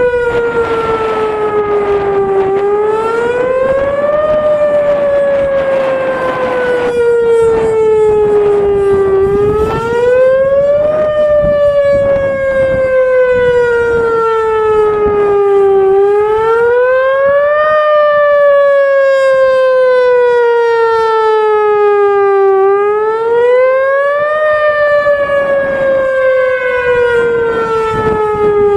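Whelen Vortex R4 outdoor warning siren sounding during a test. Its loud tone repeatedly climbs over about two seconds and then slowly sinks over about five, in a steady rising-and-falling cycle.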